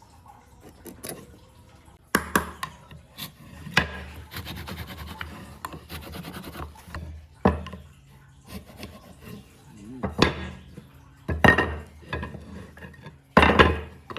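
Hand work on wood: several sharp knocks of wood against wood or a tool, with a stretch of rough rubbing or rasping in between.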